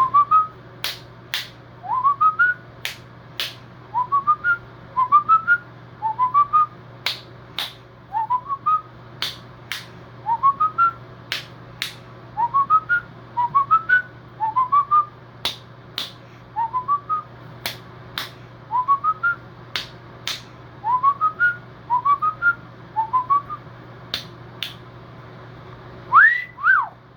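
Whistling: a short phrase of quick notes rising in pitch, repeated about once a second, with sharp clicks in between. Near the end comes one louder rising-and-falling wolf whistle.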